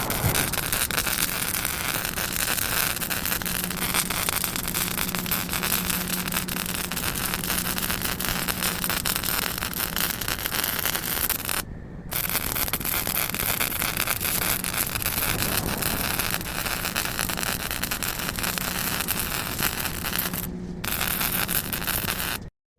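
A power tool working on metal: a continuous harsh hiss over a steady low hum, stopping for a moment twice and cutting off just before the end.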